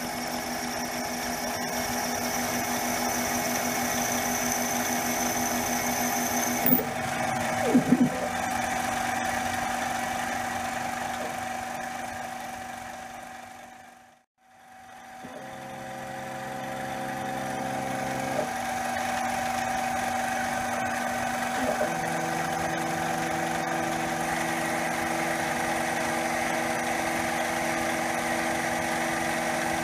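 CNC-converted mini lathe running under program: a steady spindle motor hum with the stepper motors' held tones, which shift in pitch several times as the carriage feeds. A two-flute end mill is drilling and boring aluminum. A couple of short clicks come about a quarter of the way in, and the sound fades almost away at about the middle and comes back.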